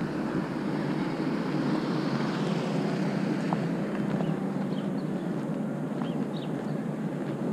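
Wind rushing over the microphone, with a steady low rumble from moving along the pavement. A few faint, short high chirps come in over it in the second half.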